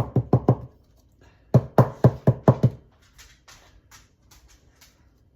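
Two quick runs of hollow knocks, about five or six a second, as a measuring cup of enchilada filling is tapped to knock the filling out onto a tortilla. Fainter light clicks follow.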